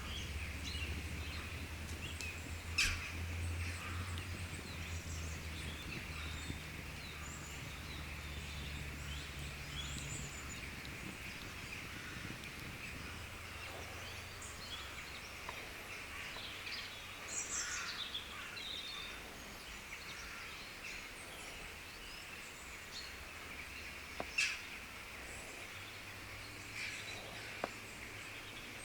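Campfire burning with a steady hiss and crackle, two sharp pops standing out a few seconds in and near the end, while small birds chirp now and then. A low rumble fades out about a third of the way in.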